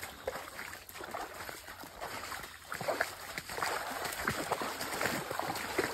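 Footsteps wading through ankle-deep water on a flooded trail: repeated, irregular splashing and sloshing.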